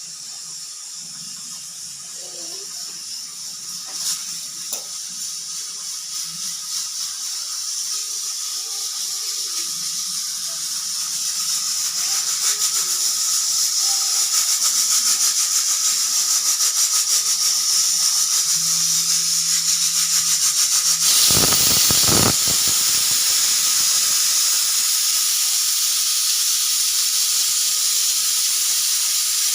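Pressure cooker whistle: steam hissing out under the weight, growing steadily louder with a fast flutter, then about two-thirds through it suddenly opens into a full, loud whistle that holds. Built-up pressure is venting through the cooker's weight valve.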